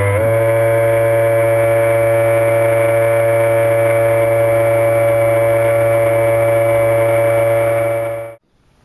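Steady drone of the homebuilt ROV's modified bilge-pump thruster motors, heard underwater through the camera housing. It rises briefly in pitch as the motors spin up, then holds a steady whine and cuts off abruptly near the end.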